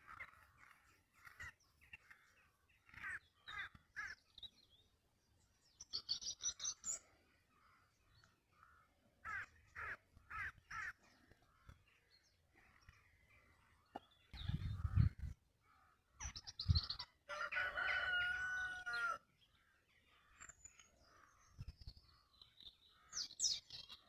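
Wild birds calling: scattered bursts of short, harsh repeated calls and some higher chirps, with one longer call of about two seconds around seventeen seconds in. A couple of low thumps just before that call are the loudest sounds.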